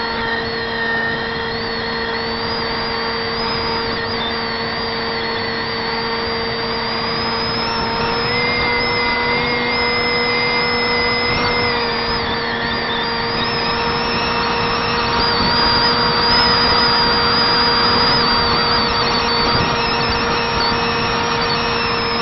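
Electric brushless motor and 6x4 propeller of a Zeta Wing Wing Z-84 flying wing running at steady cruise throttle, heard from a camera on the model: a steady buzzing whine over a rush of air. The pitch steps up slightly about eight seconds in.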